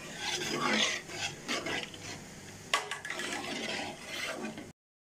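Metal spoon stirring and scraping rice in a large metal cooking pot, in irregular strokes with one sharp clink against the pot about halfway through; the sound cuts off abruptly just before the end.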